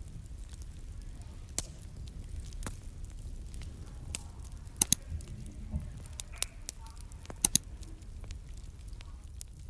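Wood fire crackling, with irregular sharp pops over a low steady rumble; the loudest come as two quick double pops, one near the middle and one a few seconds later.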